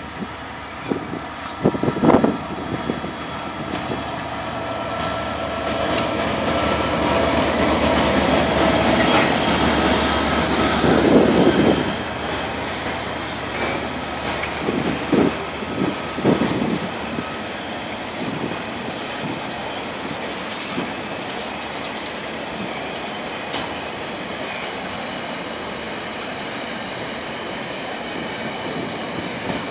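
A coal train passing close by. The sound builds to its loudest about ten seconds in, then settles into a steady rumble and clatter of the coal wagons rolling past on the rails, with a few sharp clunks along the way.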